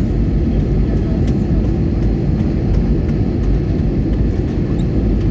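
Steady low rumble of an airliner's engines and airflow on approach to landing.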